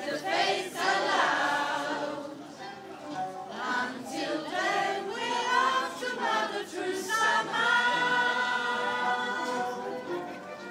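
A group of people singing a Christmas carol together, several voices in chorus with long held notes.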